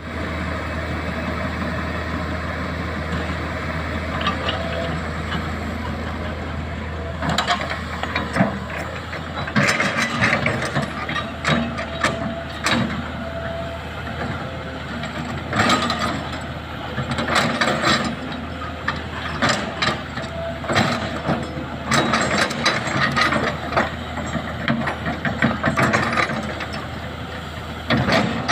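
Excavator diesel engine running steadily, with irregular bursts of clattering and scraping of rock against steel from about seven seconds in.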